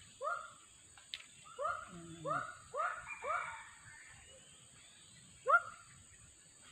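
An animal giving short, rising yelping calls one at a time in an uneven series: about five in the first three and a half seconds, then one more near the end.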